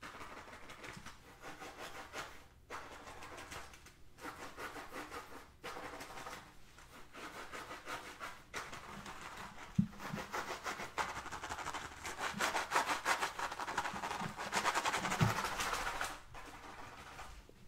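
Fingernails scratching a soft black drawstring pouch in quick strokes. The strokes come in short runs with brief pauses at first, then turn steadier and louder about halfway through, and stop shortly before the end.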